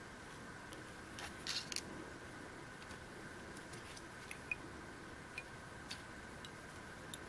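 Faint handling noises of fly tying: fingers working a foam hopper body and its thread on a hook in a vise, with a short cluster of rustling clicks about one and a half seconds in and a few light ticks later, over a steady faint hum.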